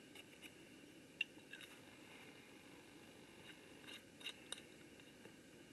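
Near silence with a few faint, light clicks and taps from small objects being handled, over a low steady background.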